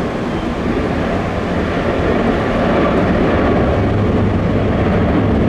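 Jet airliner engines running, a steady rumble that grows slightly louder about halfway through.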